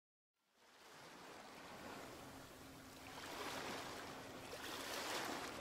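Faint washing of water waves, swelling and falling back twice.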